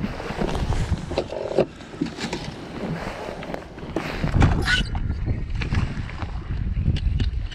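Wind rumbling on the microphone over water lapping at a bass boat's hull, with scattered knocks and clicks of gear on the deck. A brief high whizz comes about four and a half seconds in.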